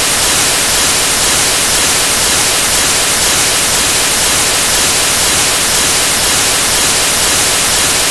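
Loud, steady static hiss, heavier in the treble than the bass, with nothing else heard in it.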